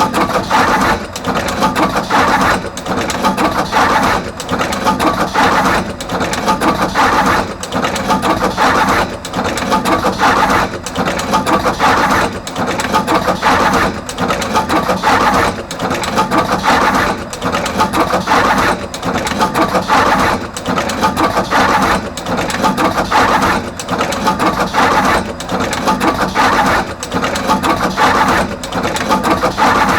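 Artos CR22 automatic wire cut-and-crimp machine running production, crimping terminals onto both ends of each wire: a clattering mechanical cycle that repeats every second or two, over a steady hum.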